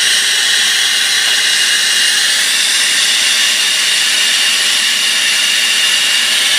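Steady hiss of a hand-held gas torch flame heating copper pipe to sweat a soldered joint.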